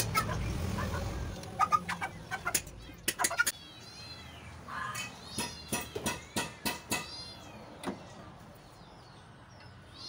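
Light metallic clicks and clinks of engine parts being handled in the first few seconds, then a run of short high bird chirps, about two a second, from about four to seven seconds in.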